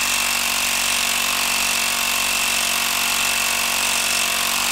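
Hilti 12-volt impact driver hammering continuously under heavy load on a fastener in a wood stump. It makes a steady, rapid rattle with a constant high whine that does not change.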